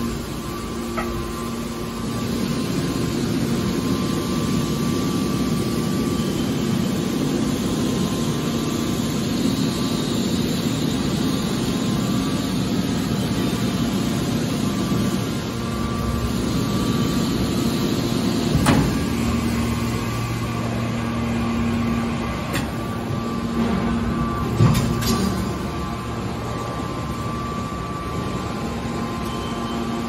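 Hydraulic metal baler running: a steady hum and hiss from its hydraulic power unit. Two sharp metallic knocks come a little past the middle, about six seconds apart.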